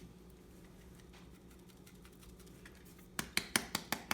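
Quiet room hum, then about three seconds in a spice container of homemade seasoning starts being shaken in fast, even taps, about six a second.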